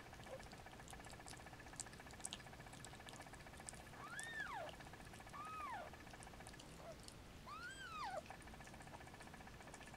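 Newborn kittens mewing: three faint, high squeaking calls, each rising and then falling in pitch, about four, five and a half and nearly eight seconds in. Small clicks and rustling come between them.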